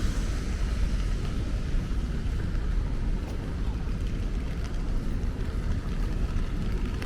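Steady rain falling on a city street, with a low rumble underneath.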